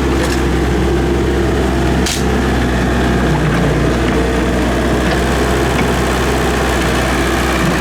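Excavator diesel engine running steadily at low speed, with a single sharp knock about two seconds in.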